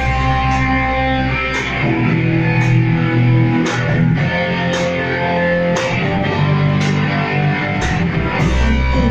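Live rock band playing an instrumental passage: electric guitar chords ringing over bass notes, with drum hits about once a second.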